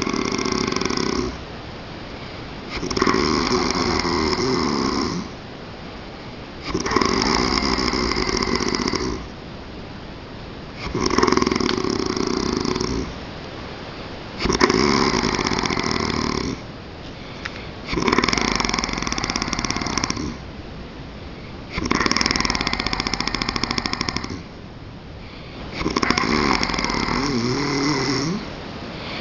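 A man snoring: long snores repeat regularly about every four seconds, eight in all, each lasting about two seconds, with quieter breathing between them.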